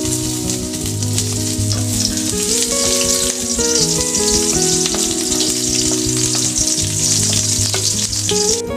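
Food frying in a hot pan: a steady sizzle that cuts off abruptly shortly before the end, over background music.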